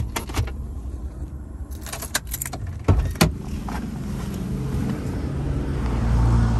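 A few sharp clicks and clacks from a Ford F-150 pickup's door handle and latch as the door is opened. After that a low steady rumble of street traffic grows louder near the end.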